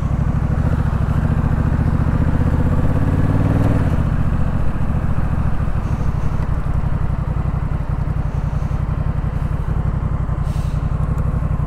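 Honda Rebel 1100 DCT's parallel-twin engine pulling away under acceleration. Its pitch rises for about four seconds, then drops suddenly as the dual-clutch gearbox shifts up, and it runs on steadier after that.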